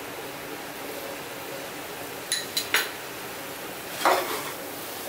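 Perforated metal spatula clinking against an aluminium pressure-cooker pot while salt is stirred into the chicken masala: three sharp taps a little after two seconds in, then a louder scrape and clatter about four seconds in.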